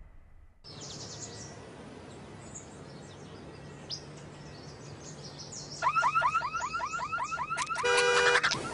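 Birds chirping over a low steady hum, then about six seconds in a car alarm starts: a rapid run of rising electronic whoops, about five a second, changing near the end to a fast pulsing beep.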